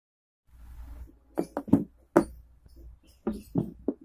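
A string of short, sharp knocks and thumps, about seven, irregularly spaced, over a faint low hum: objects being handled and bumped close to the microphone.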